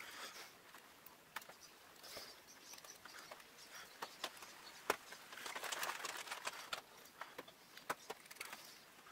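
Faint utility-knife blade cutting and scraping into a wooden lure's head, heard as scattered small clicks with a longer scratchy stretch around the middle.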